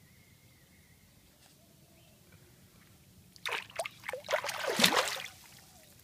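Water splashing and sloshing as a bass is released by hand in shallow water and kicks away: a burst of irregular splashes starting about three and a half seconds in and lasting about two seconds.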